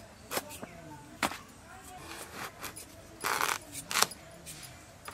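Kitchen knife cutting lengthwise through a raw bottle gourd on a woven bamboo tray: a few sharp knocks and a short crisp slicing sound a little after three seconds in.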